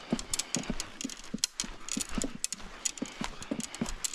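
Footsteps crunching and rustling through leaf litter, twigs and brush on a forest floor, an irregular patter of snaps and crackles from someone walking with gear.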